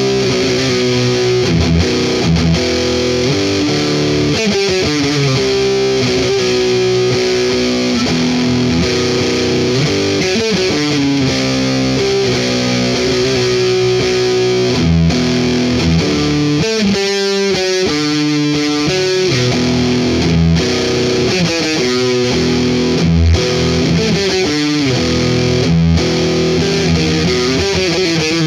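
Distorted electric guitar playing a metal riff through an effects unit: held chords that change every second or two, with a few faster note runs.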